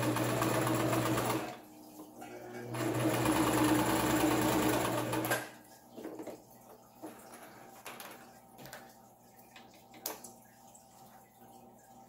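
Brother LS-1520 electric sewing machine stitching a seam through ironing-board fabric in two runs, the second the longer, with a short pause between; it stops about halfway through, followed by a few light clicks of handling.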